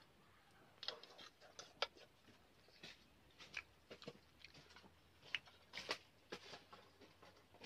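A person eating with fingers: irregular soft clicks, smacks and crunches of chewing and of food being pulled apart by hand.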